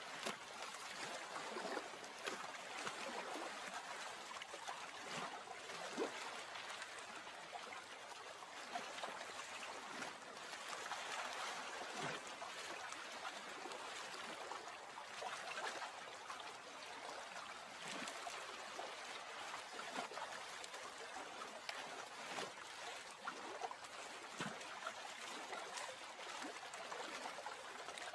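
Gently trickling, gurgling water: a steady wash with small gurgles scattered irregularly through it.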